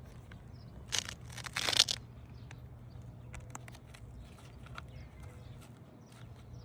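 Asphalt roof shingles being lifted and worked into place: two short scraping, crackling rasps about a second in, the second longer and louder, then a few faint ticks.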